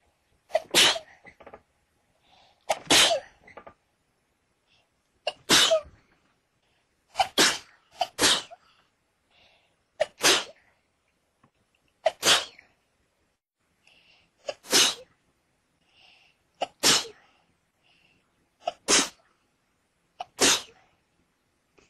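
A person sneezing over and over in a sneezing fit: about ten loud, sharp sneezes, roughly one every two seconds, with two coming close together about seven and eight seconds in.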